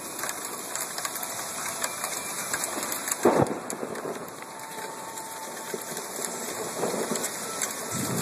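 Hail falling, a dense steady patter of small ticks, with one short thump about three seconds in.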